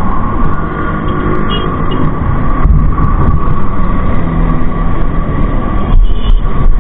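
Loud, steady road-traffic rumble from passing vehicles, with a constant high whine running through it and brief louder swells about three seconds and six seconds in.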